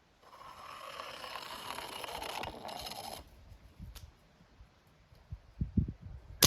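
A clay pigeon rolling and scraping down a slope for about three seconds, stopping abruptly as it falls over. A few soft low thumps follow, and right at the end a CO2 BB pistol fires with a sharp crack.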